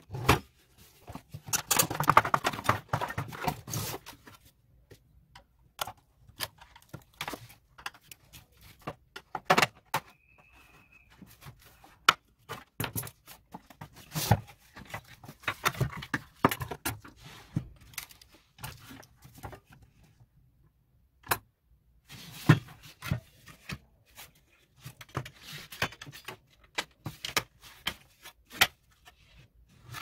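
Plastic casing of an electric fan heater being handled and pulled apart: irregular clicks, knocks and rattles of plastic parts, with pauses between bursts of handling.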